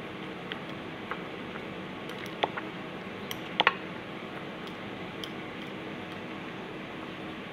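A metal spoon clinking against a ceramic bowl several times as cauliflower florets are turned in a thick batter, the loudest double clink about three and a half seconds in, over a steady low hum.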